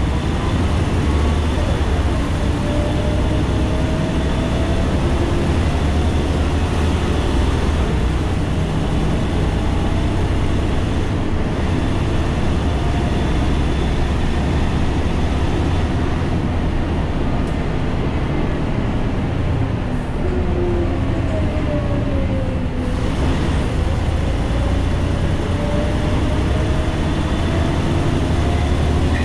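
Ikarus 435 articulated diesel bus on the move, heard from inside the passenger cabin: a steady low engine drone with road noise, and a drivetrain whine that slowly rises and falls in pitch as the bus gathers and loses speed. It dips lowest about 23 seconds in, then climbs again as the bus pulls away.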